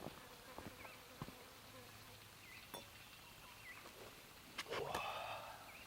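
Quiet bush ambience with faint, repeated short bird chirps. A few soft knocks are followed near the end by a brief scuffing rustle, like footsteps in scrub.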